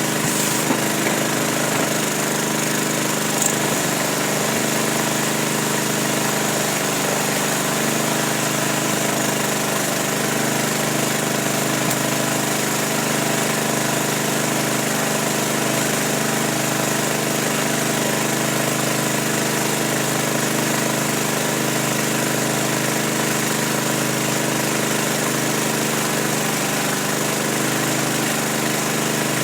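A steady motor drone at one constant pitch, unchanged throughout, with a couple of faint ticks in the first few seconds.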